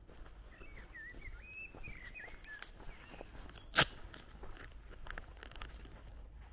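Footsteps on a paved lane, with a songbird's short warbling song about half a second to two and a half seconds in. Just before the middle comes a single sharp crack, the loudest sound.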